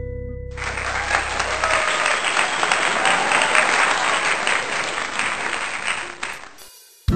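Applause, a crowd clapping: it starts suddenly about half a second in and fades away near the end.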